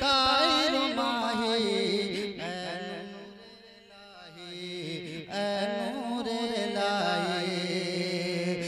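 A man's voice singing a naat through a microphone, drawing out long ornamented notes that bend and waver in pitch. The voice fades to a lull in the middle, then comes back strongly.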